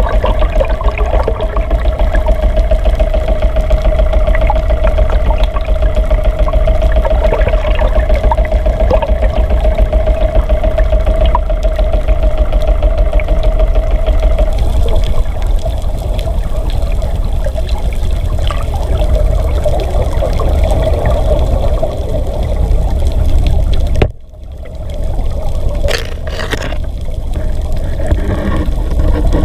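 Underwater noise as picked up by a camera submerged in the sea: a loud, continuous low rumble of moving water, with a steady hum through the first half. The sound drops out sharply for a moment near the end, followed by a few clicks.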